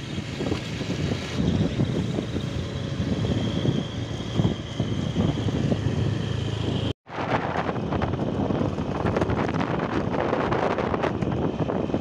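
Engine and road noise of a moving vehicle, with wind buffeting the microphone. The sound cuts out abruptly for a split second about seven seconds in and comes back gustier.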